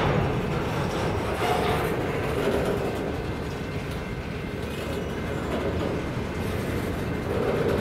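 Empty covered hopper cars of a grain train rolling past on steel rails: a steady rumble and clatter of wheels on the track.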